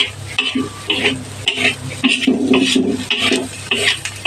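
A spatula scraping and stirring in a frying pan with repeated strokes, about three a second, over the sizzle of spices and dried anchovies frying in oil.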